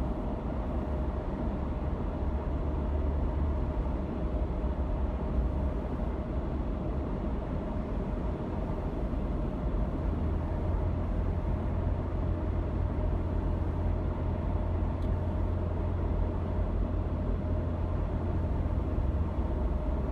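A car driving along, heard from inside the cabin: steady road and engine rumble, deep and even, with a faint constant hum above it.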